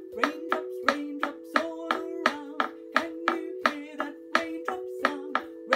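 A pair of wooden sticks tapped together in a steady beat, about three taps a second, while a woman sings a simple melody over them.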